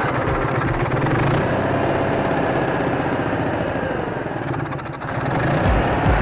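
Onan 4000 RV generator engine running with a rapid steady pulse after being restarted on a fresh fuel filter. It falters briefly about five seconds in, then picks up again.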